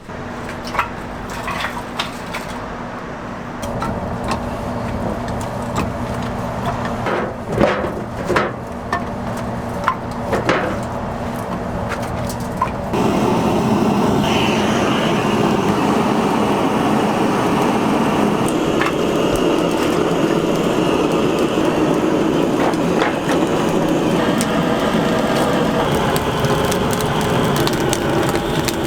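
Oak wood fire crackling with scattered sharp pops and cracks over a low steady hum. About halfway through, a louder, steady hiss takes over.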